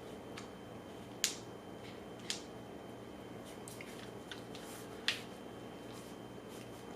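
Handling noises from tools being picked up and put down: three sharp clicks, about a second in, two seconds in and five seconds in, with fainter taps between them, over a faint steady hum.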